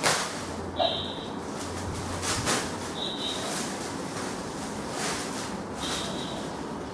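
Gold metallic foil gift wrap crinkling and tearing as it is pulled off a present. Three short high-pitched chirps sound about a second in, around three seconds in, and near the end.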